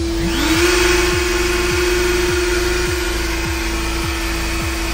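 Makita 700c router spindle running steadily at 20,000 rpm with a high, even hum. About a quarter second in, a second motor spins up with a rising whine and adds a steady rush of air noise.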